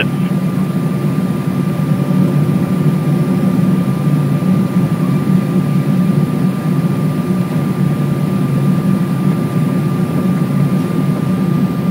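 Steady cabin noise inside a Boeing 777-200 descending on approach with its flaps extended: an even, low rush of engines and airflow, with a thin steady whine above it.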